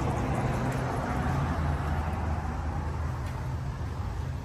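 Road traffic: a passing vehicle's tyre and engine noise swells over the first couple of seconds and then fades, over a steady low engine hum.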